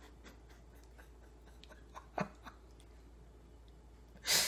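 A man's mouth and breath sounds in a pause between words: faint lip and tongue clicks, a brief sound falling in pitch about two seconds in, then a sharp breath through the nose or mouth near the end, the loudest sound here.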